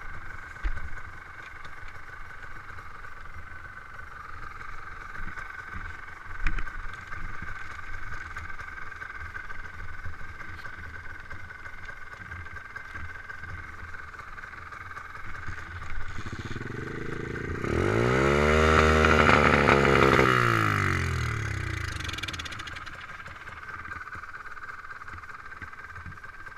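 Stomp pit bike's small single-cylinder four-stroke engine idling steadily. A little past the middle it revs up and back down over about four seconds.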